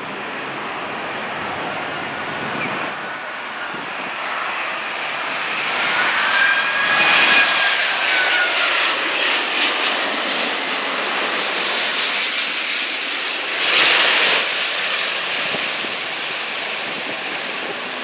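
Airbus A380-800 on final approach with its four Rolls-Royce Trent 972 turbofan engines at approach power, passing low overhead. A jet rush and high whine build up, with the whine bending up then down in pitch. It is loudest as the aircraft goes over, surges briefly about two-thirds through, then eases as it moves away.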